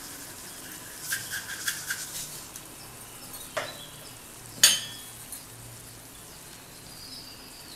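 Water at a rolling boil in a nonstick pan while vermicelli is tipped in, with light clinks about a second in, then a metal perforated ladle knocking against the pan: one sharp, ringing knock near the middle is the loudest sound.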